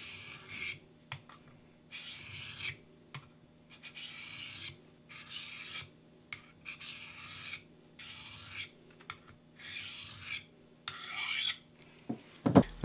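Mora Bushcraft Black's Scandi-ground blade drawn across the coarse side of a Smith's DCS4 diamond sharpener, a dry rasping scrape on each stroke. There are about eight strokes, roughly one a second, with short pauses between them.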